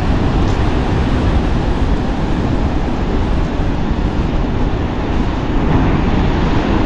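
Strong wind buffeting the microphone, a loud steady rumble, with surf breaking behind it.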